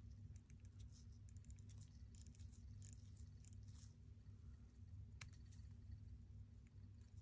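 Faint, irregular small clicks from the crown of a vintage Certina DS-2 watch being turned between the fingertips, the winding ratchet clicking, over a low steady hum; one sharper click comes about five seconds in.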